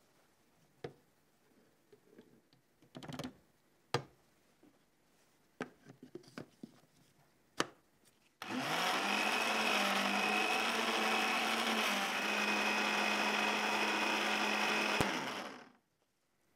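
Electric blender running for about seven seconds, mixing a thin batter of water, sugar, yeast and flour, with a steady motor hum, then switched off and spinning down. Before it, a scattering of light clicks and knocks.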